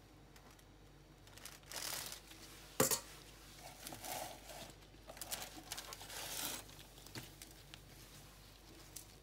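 Rustling and scraping as whipped cream is spread and smoothed over a sponge cake layer with a spatula, with one sharp click about three seconds in.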